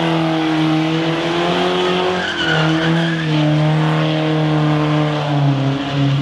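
Car doing a burnout: engine held at high revs, its pitch slowly falling, over the squeal and hiss of spinning tyres.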